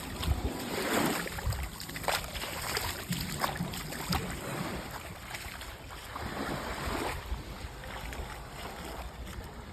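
Shallow sea water washing and lapping in two gentle swells, with wind on the microphone and a few small splashes or knocks.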